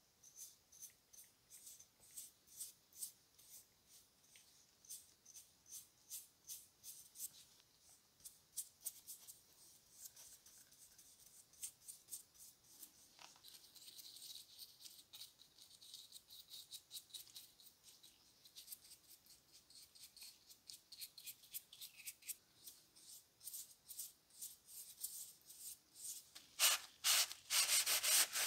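Bristle brush strokes on wood, wetly spreading linseed oil varnish over small turned wooden handle parts: faint, short swishing strokes about two a second. Near the end, louder rubbing as a cloth wipes the excess oil off a handle.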